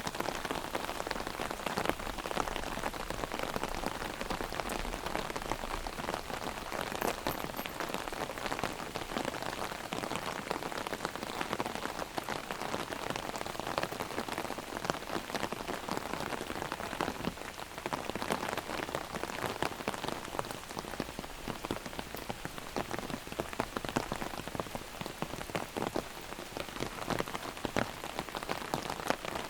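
Heavy rain drumming on an open umbrella overhead: a dense, steady patter of countless drops.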